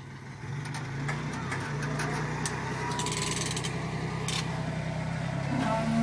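Lifted Toyota pickup's engine running at low revs as the truck crawls up a rock ledge, its pitch stepping up slightly about a second and a half in. A few sharp knocks and a short hiss about three seconds in.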